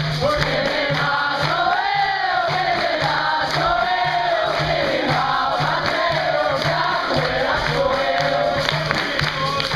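Capoeira roda music: a group singing together over rhythmic hand clapping, with a steady low beat about twice a second.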